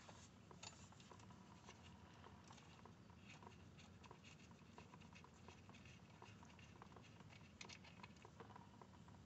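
Near silence: faint room tone with scattered small clicks and taps.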